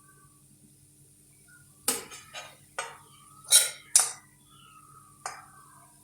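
A cooking utensil scraping and knocking against a pan as fried mashed potato filling is stirred and scooped out. There are about six sharp strokes, starting about two seconds in, with the first two seconds quiet.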